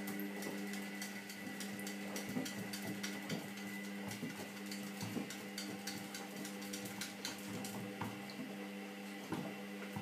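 Front-loading washing machine running with a steady motor hum as its drum turns, while a small dog's claws tap and scratch over and over on the glass door.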